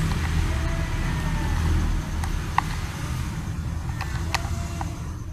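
Road traffic, with motorbike engines passing. The low rumble eases after about two seconds, and a few light clicks come in the second half.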